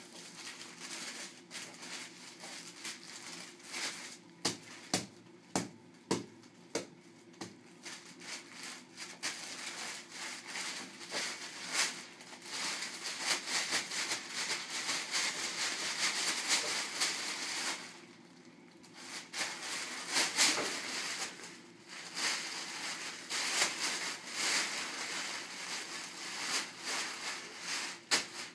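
Paper sheet on an exam table crinkling as a toddler's hands grab, pull and scrunch it: scattered crackles at first, then almost continuous crunching through the second half, with a short lull about two thirds of the way through.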